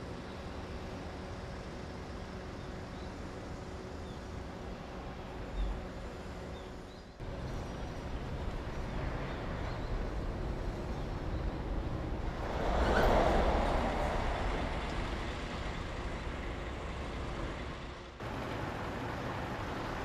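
KiHa 20 diesel railcars' DMH17-series diesel engines idling with a steady hum. A louder rush of noise swells and fades just past the middle. The sound breaks off abruptly twice.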